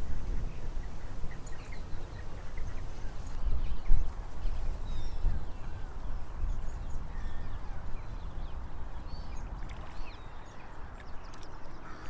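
Outdoor ambience: a low, uneven rumble with faint, scattered bird calls over it.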